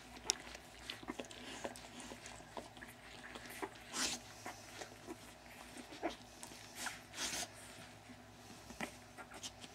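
Week-old puppies nursing from their mother: soft, irregular suckling and mouth noises, with a few louder ones about four seconds in and about seven seconds in.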